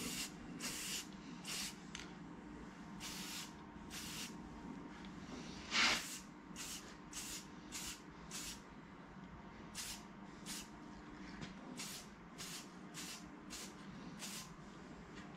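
Aerosol can of brass metallic spray paint sprayed in many short bursts, one or two a second, each a quick hiss. One burst about six seconds in is louder than the rest.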